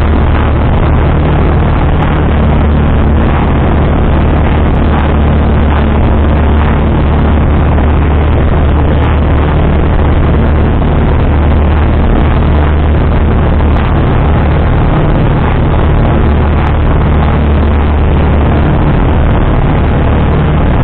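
Single-engine light aircraft's piston engine and propeller droning steadily, heard inside the cockpit in cruise flight: a constant low hum with a rushing noise over it.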